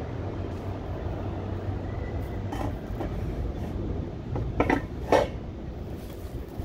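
Car driving: a steady low rumble of engine and road noise, with a few sharp knocks and rattles, the loudest two close together about four and a half and five seconds in.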